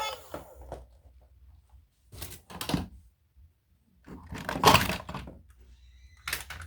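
Handling noises: a few dull knocks and scrapes, the loudest about four and a half seconds in.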